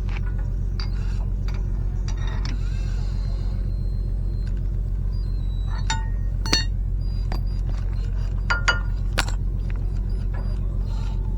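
A steady low mechanical hum, with a few sharp metallic clinks of metal tools or parts about six seconds in and again near eight to nine seconds.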